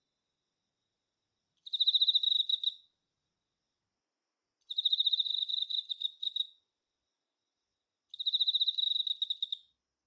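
Male Emma field cricket (Teleogryllus emma) singing: three trilling bouts, each one to two seconds of rapid high-pitched chirps, separated by a few seconds of silence.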